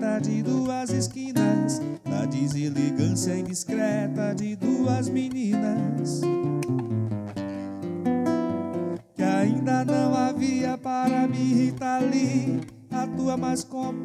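Acoustic guitar played live, an instrumental passage of chords and melody notes, with a brief break about nine seconds in.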